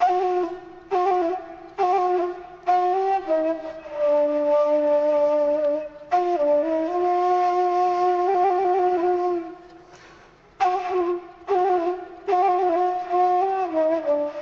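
Background music: a solo woodwind melody played in short, ornamented phrases with trills and brief pauses between them.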